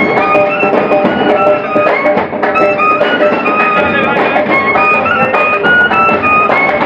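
Live street-band music: a clarinet playing a wavering melody over steady drum beats from a side drum.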